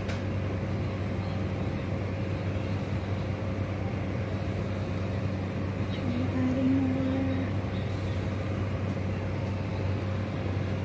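Steady low hum with a background hiss. About six and a half seconds in there is a brief hummed voice note lasting about a second.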